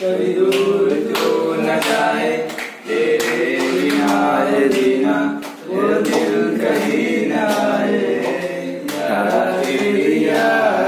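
A small group of young men singing together without instruments, in long phrases with short breaks about three and six seconds in.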